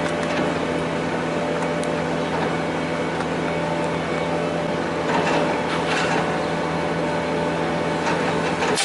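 Steady mechanical hum of a motor or fan, with a sharp click just before the end.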